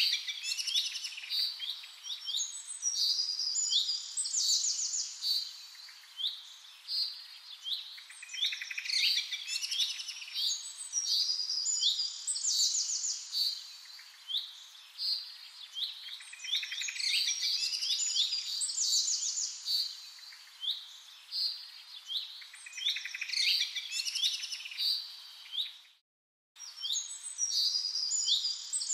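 Small birds chirping and singing: many short, high, repeated calls in quick phrases over a faint hiss, cutting out for a moment about 26 seconds in.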